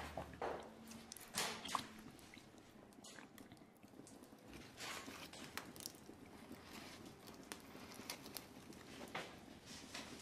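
Quiet mealtime sounds: spoons clinking now and then against china soup plates, with faint eating sounds.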